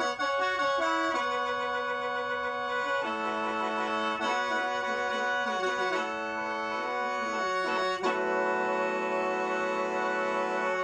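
Lao khaen, a bamboo free-reed mouth organ, played solo: clusters of sustained reedy notes over a drone, the chord shifting every second or two, with a lower held note coming in about eight seconds in.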